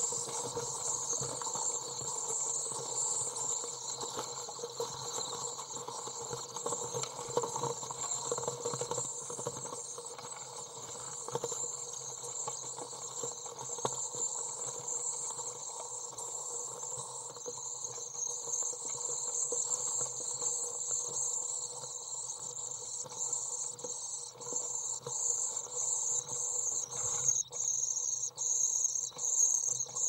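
Common swifts calling inside a nest box: a continuous high, insect-like trill that breaks into quick, regular pulses over the last few seconds.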